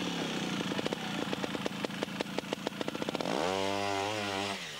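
Two-stroke trials motorcycle engine climbing a steep section, popping and blipping at low revs. About three and a half seconds in it revs up and holds high for about a second.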